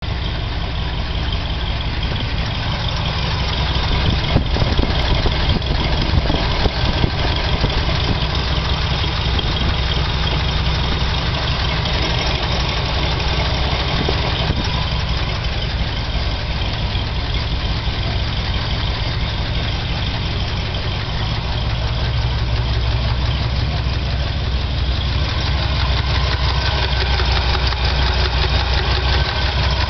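Chevrolet 396 big-block V8 idling steadily with a ticking from the cylinder head. The tick persisted after a valve adjustment, so its cause is not yet found.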